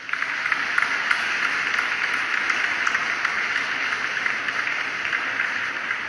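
Steady static-like hiss with faint crackles, swelling in at the start and easing off slightly near the end.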